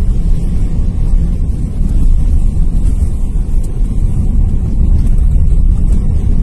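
Steady low rumble of a car driving along a rough, patched asphalt road, heard from inside the cabin: tyre and road noise with the engine underneath.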